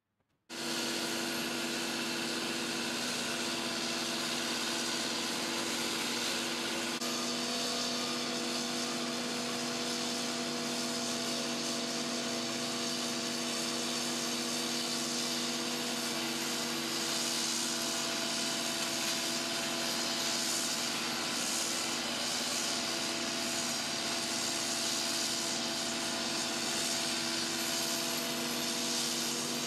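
Cat 309 mini excavator running with a hydraulic flail mower spinning on its arm, a steady hum of engine and rotor over an even hiss.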